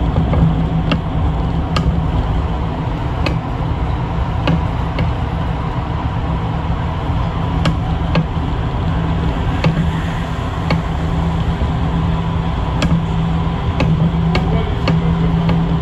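Inside a city bus at motorway speed: a steady engine and drivetrain drone with constant road and tyre noise, and scattered sharp clicks and rattles from the cabin.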